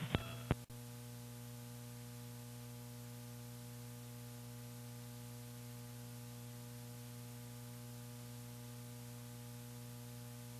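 Steady low electrical hum with a layer of hiss: line noise on the launch-commentary audio feed, with a single click just under a second in.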